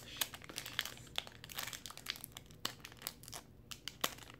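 Foil wrapper of an O-Pee-Chee Platinum hockey-card pack crinkling and crackling in the fingers as it is handled, in irregular sharp crackles.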